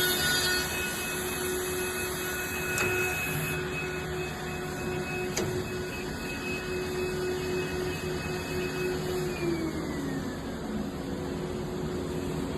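Edge banding machine running with a steady motor hum and hiss, with two sharp clicks a few seconds apart; about three-quarters of the way through, the motor's pitch falls away as it slows.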